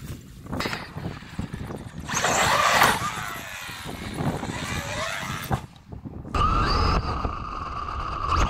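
Electric RC monster truck's motor whining loudly as it speeds up the ramp, quieter while the truck is in the air, then a steady high whine from about six seconds in as it drives on after landing.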